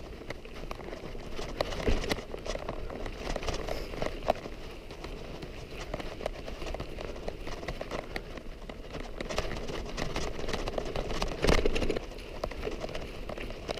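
Irregular crunching steps on a dry, stony dirt trail, with scattered knocks and a louder scuff about eleven and a half seconds in.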